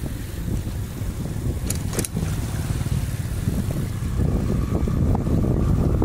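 Wind buffeting the microphone of a moving bicycle, with a steady low rumble of tyres on the concrete road and two sharp clicks about two seconds in.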